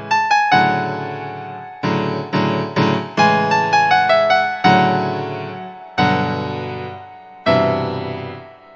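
Background music: a piano-like keyboard playing chords and single notes that each ring out and fade, with a quick run of notes in the middle.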